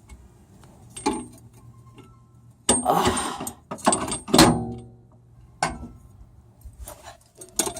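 Metal parts and tools clanking and clicking while a new car shock absorber is fitted: scattered knocks, a rattling stretch about three seconds in, and a loud clank that rings briefly about halfway through.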